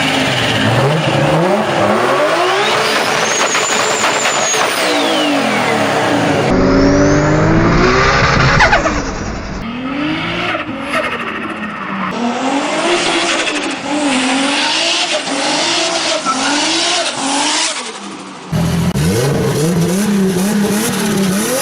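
Modified turbocharged car engines revving up and down again and again, in several short clips one after another.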